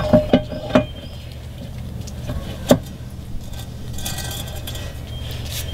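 Metal clinks and knocks as a stainless-steel propeller and its hub parts are fitted onto the splined propeller shaft of a Mercury Optimax outboard's lower unit: three quick knocks in the first second, then a single one a couple of seconds later. A steady low hum runs underneath.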